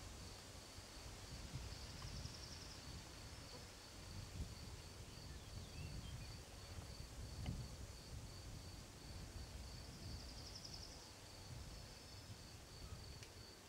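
Meadow ambience: an insect, likely a cricket, chirping steadily at a high pitch, about three chirps a second, with two short raspy insect buzzes about two seconds in and again about ten seconds in, over a faint low rumble.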